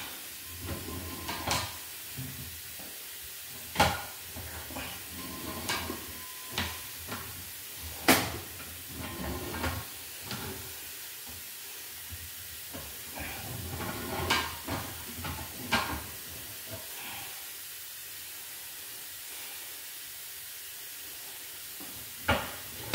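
Irregular knocks and clicks over a steady hiss as a sewer inspection camera's push cable is fed and worked through the line; the sharpest knock comes about eight seconds in.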